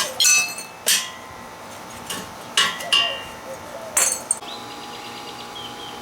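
Scrap steel clanking: about six sharp metal strikes, each ringing briefly, in the first four and a half seconds. After them comes a quieter steady sound with a faint tone.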